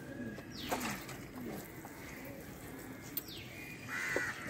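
Faint trickle of liquid poured from a plastic bottle's sprinkler cap onto potting soil, with birds chirping in short falling calls about a second in and again near three seconds.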